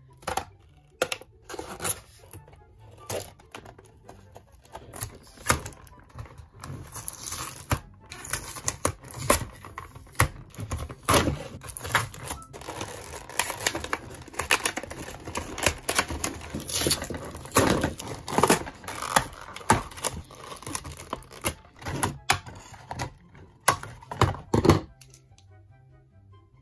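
Cardboard box and clear plastic blister packaging being torn open and crinkled by hand: a dense, irregular run of rips, crackles and clicks that stops near the end. Background music plays underneath.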